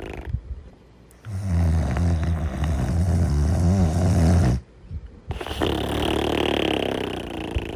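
Snoring in a sleep breathing cycle: a long, low snore of about three seconds, a brief pause, then a breathy out-breath that slowly fades.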